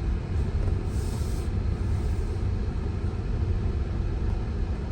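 Steady low rumble of a Tesla's tyres and road noise inside the car's cabin as it drives, with a brief hiss about a second in.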